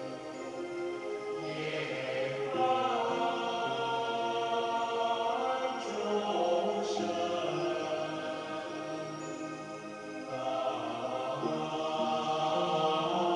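Recorded Buddhist chant sung by a choir: several voices holding long, slow notes that shift to new pitches a few times.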